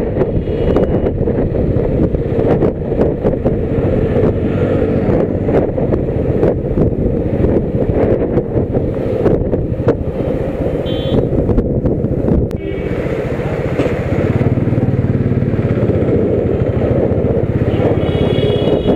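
Motorcycle engine running steadily while riding on the road, with wind buffeting the microphone. Short horn toots from traffic sound near the end.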